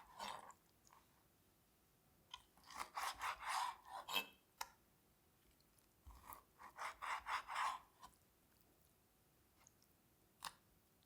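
Food being cut or scraped on a kitchen surface: three short runs of quick, crunchy strokes, then a single tap near the end.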